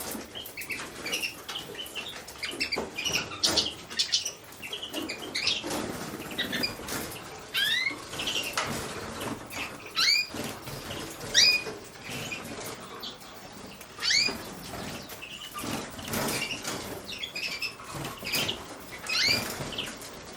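Small aviary finches, among them a common crossbill hen, giving short, sharp, rising chirps every second or two. Wings flutter and small feet patter between the calls.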